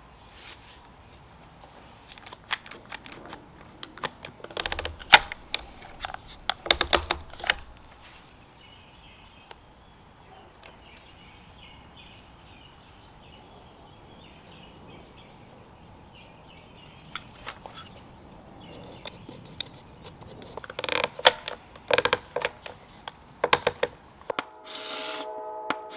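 Handling clicks and knocks on a wooden high-chair joint while glue is injected into a crack, then a run of sharp clicks as a one-handed ratcheting bar clamp is squeezed tight on the joint, ending in a short squeak. Faint bird chirps can be heard in between.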